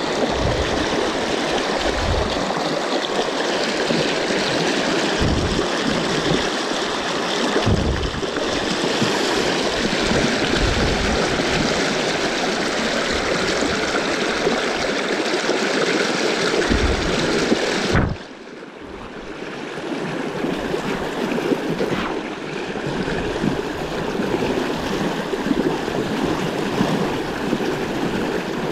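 Fast river rapids rushing and splashing close by, a steady white-water rush with a few low thumps. About two-thirds of the way through, the rush suddenly drops and turns duller, then slowly builds back.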